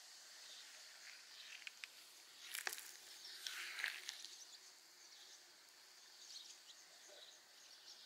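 Faint outdoor ambience with a steady high hiss, broken by a short spell of sharp clicks and rustling about two and a half to four seconds in.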